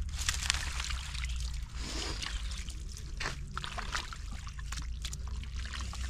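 Water splashing and pouring in irregular bursts, as water is worked by hand in a shallow pond, with a steady low hum underneath.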